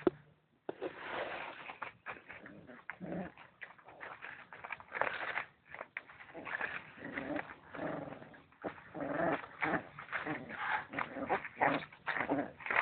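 Dogs making a string of short, irregular vocal sounds that come thicker and louder in the second half.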